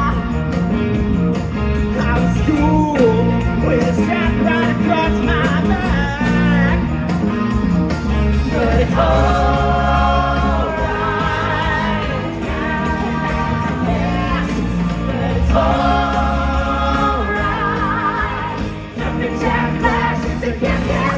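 Live rock band playing: singing over guitars and a steady bass, with held vocal lines about halfway through and again near the end.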